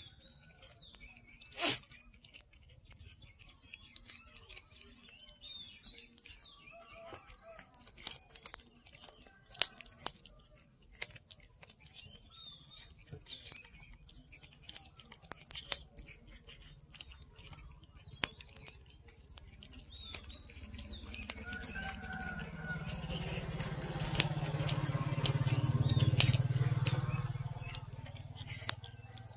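Cats chewing and gnawing on a boiled chicken carcass, making scattered wet clicks and crunches of meat and bone, with one sharp crack about two seconds in. Birds chirp in the background. In the last third a low humming drone swells up and fades away.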